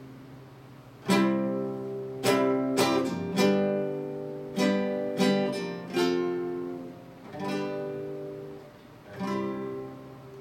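Acoustic guitar strummed in chords, about ten strums at an uneven pace, each chord left to ring and fade; the last strum comes near the end and dies away.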